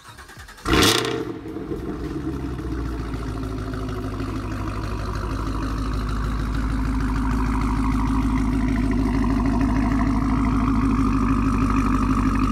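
Supercharged V8 of a sixth-generation Chevrolet Camaro ZL1 starting with a loud flare about a second in, then settling to a steady idle that grows slightly louder. The exhaust is a Corsa axle-back with the secondary catalytic converters removed and the primary cats kept.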